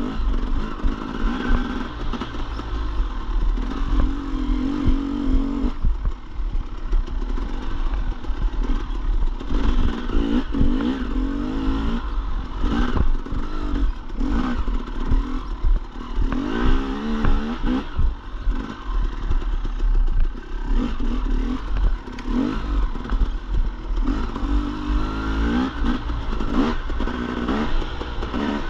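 Dirt bike engine revving up and down over and over while riding, with frequent clattering knocks throughout.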